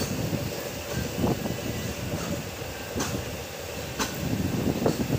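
Passenger train rolling on the track with a steady low rumble and a few sharp, irregular knocks from the running gear as it pulls into a station.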